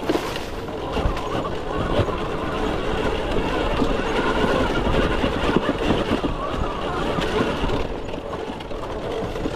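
Electric dirt bike ridden over a rocky trail: a dense clatter of tyres and chassis knocking over stones, with a faint steady high whine throughout.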